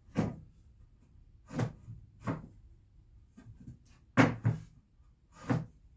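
Wooden boards knocking and thudding as they are handled and shifted on a work table: about six separate knocks, the loudest a close pair about four seconds in.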